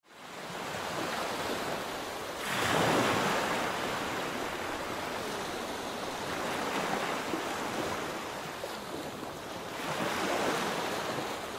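Small waves washing onto a sandy beach: a steady rush of surf that fades in at the start and swells louder about two and a half seconds in and again near the end.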